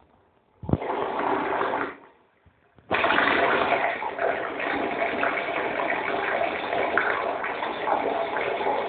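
A stream of urine splashing into water: a short spurt about a second in, then after a brief pause a steady, heavy stream that keeps going.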